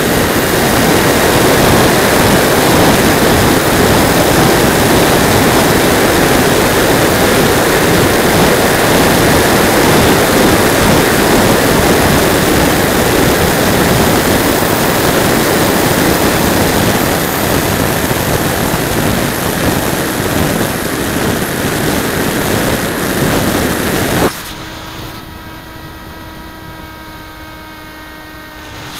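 Rush of wind and the whine of a small electric RC plane's 3800 kv motor spinning a 5x5 propeller, picked up by the onboard camera's tiny microphone, loud and steady. About 24 seconds in it drops abruptly to a quieter, steady whine with several even tones, and comes back up loud at the very end.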